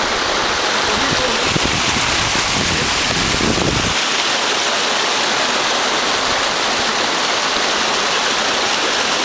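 Creek water rushing steadily over rocks. A low rumble underneath cuts off suddenly about four seconds in.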